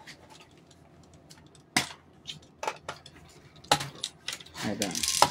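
Handling sounds of a BB storage bag and a plastic high-capacity airsoft magazine being picked up and readied for refilling: a few separate sharp clicks and knocks, about a second apart.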